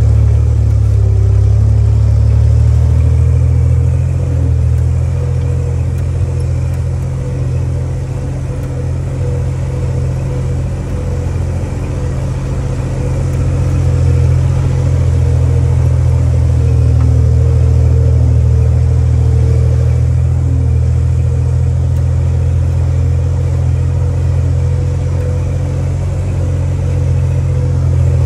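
1944 Willys Jeep's four-cylinder flathead engine running steadily as the Jeep drives along a dirt trail, a constant low rumble with a faint steady whine over it.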